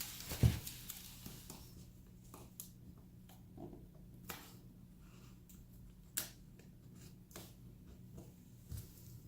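Painter's tape being handled and pressed around the edge of a wall outlet: scattered soft taps and rustles, the sharpest a little after four seconds and about six seconds in, over a faint steady low hum.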